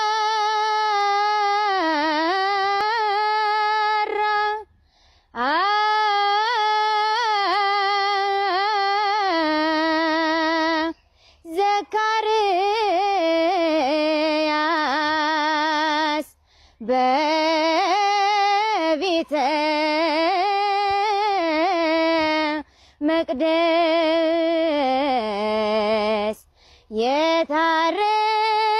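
A woman singing solo with no accompaniment, in long wavering phrases with a strong vibrato, pausing briefly for breath about five times.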